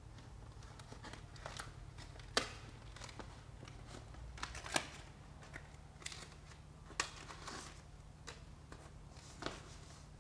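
Paper release liner of a self-adhesive Kaflex mono cable grommet rustling and crinkling as it is peeled off and the patch is pressed onto the membrane, with four sharp crackles a couple of seconds apart.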